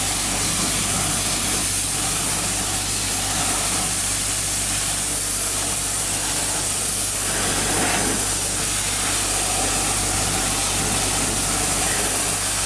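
Pressure washer running, its wand spraying a steady jet of water onto a car wheel, tyre and wheel well to rinse them off. A constant hiss of spray with a steady low hum underneath.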